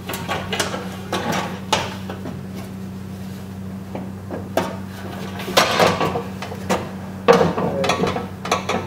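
Car door glass being fed down into the door frame: irregular knocks, clunks and scrapes of glass against the metal door and its window channels, busiest around five and a half to six seconds in, with a sharp knock a little after seven seconds.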